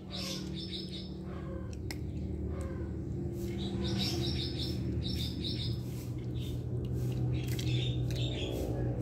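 Small birds chirping in quick runs of short high chirps, over a steady low hum, with a few sharp crunches of a cat chewing dry kibble.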